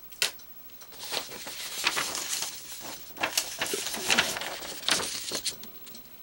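A sharp click as a small body camera is set down on a perforated steel plate, then several seconds of rustling and handling noise with scattered taps.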